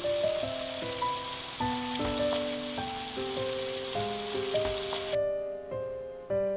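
Cubed tofu frying in a pan, a steady sizzle that cuts off suddenly about five seconds in, over gentle background music.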